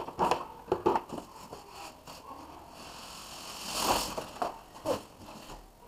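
Plastic wrapping and cardboard rustling and crinkling as items are handled in a cardboard box, with a few light knocks in the first second and a louder rustle about four seconds in.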